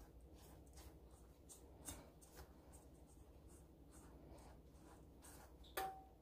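Faint scratchy swishing of a silicone whisk stirring dry flour, cinnamon, baking soda and sugar in a stainless steel bowl, about two to three strokes a second, with a brief louder knock near the end.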